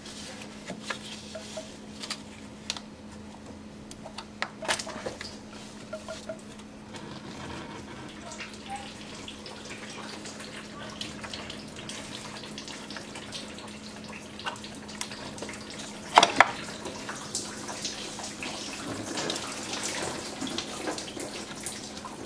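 Engine oil draining and dripping from the open oil-cooler ports of a Chevrolet Cruze 1.8L engine as the oil cooler assembly is worked loose by hand. Scattered metal clinks and knocks from the parts, the loudest a pair of sharp knocks about two-thirds of the way through.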